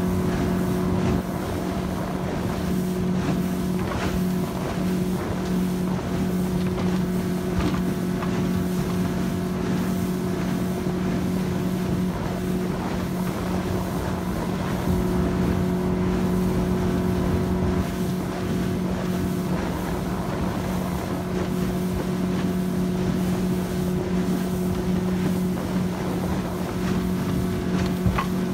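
Fishing boat's outboard motor running at a steady speed, a constant even hum, with wind buffeting the microphone.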